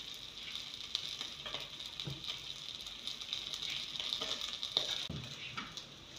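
Chicken frying in oil in a pot, a faint steady sizzle, with a few light knocks of cookware.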